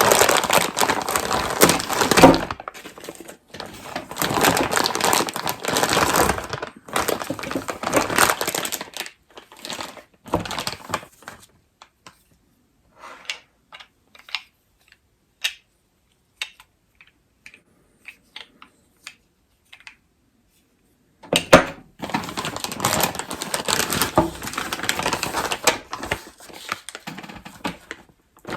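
Plastic packaging crinkling and rustling in long stretches as it is opened and handled. A quieter middle stretch holds scattered light clicks and knocks.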